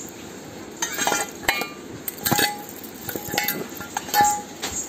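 Metal objects clinking: about half a dozen sharp, irregular strikes, each with a short ringing tone.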